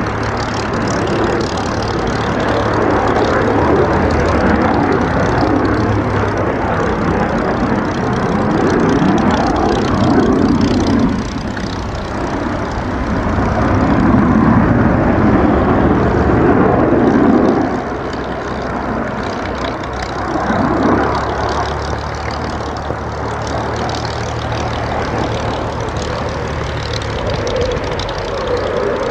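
Dassault Mirage 2000's single M53 jet engine during a low aerobatic display, a loud, continuous jet noise that swells and fades as the fighter manoeuvres. It is loudest about a third and again a half of the way through, dropping off sharply after each swell.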